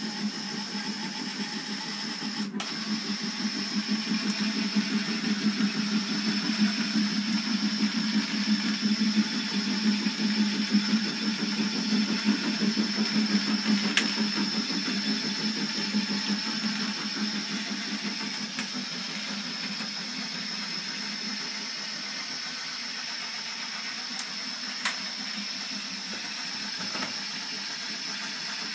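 Model railway turntable's small electric motor and gearing running as the bridge rotates, a steady buzzing drone with a fast flutter that grows quieter about two-thirds of the way through. A few faint single clicks.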